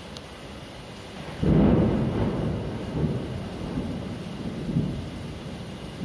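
Steady rain falling, then about one and a half seconds in a loud clap of thunder breaks in and rolls on as a low rumble that swells and fades a few times.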